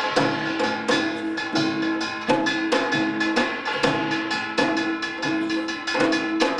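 Korean samul nori percussion ensemble playing a fast, driving rhythm: dense drum strokes on janggu and buk under the ringing clang of gongs.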